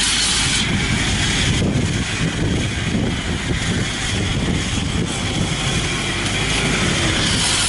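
Engine of a small tracked rice-sack carrier running steadily under load as it crawls through deep mud, with a fast low pulsing from the engine.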